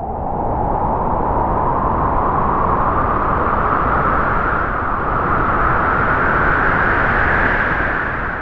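A gust of howling wind, used as a spooky sound effect. It comes in suddenly, rises slowly in pitch as it swells, and dies away near the end.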